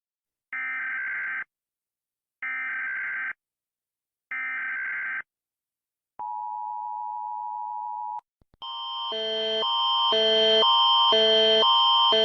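Emergency Alert System tones: three bursts of SAME header data, each about a second long, then a steady attention-signal tone for about two seconds. Just after 8 seconds a second alarm begins, a pattern of alternating tones changing about twice a second and growing louder.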